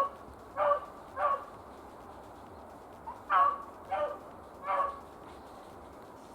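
Beagle hound baying on a rabbit's trail: six short barks, three in quick succession, then a pause of about two seconds and three more.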